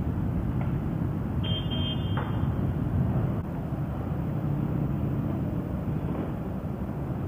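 Many motorcycle engines running together on a ferry's vehicle deck, a steady mixed rumble of V-twins, triples, inline fours and a single-cylinder. A short beep sounds about a second and a half in.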